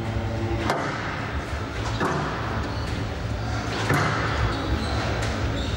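Squash ball knocks: racket strikes and the ball hitting the court walls, a few sharp hits spaced a second or more apart, echoing in a large hall over a steady low hum.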